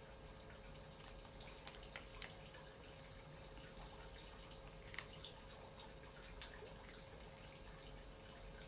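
Near silence: faint room tone with a steady low hum and a few soft clicks, the loudest about five seconds in, as acrylic fingernails handle a nail polish strip.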